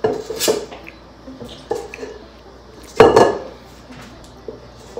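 Spoon knocking and scraping against a bowl while cookie dough is scooped: a few light knocks, then one loud clank about three seconds in.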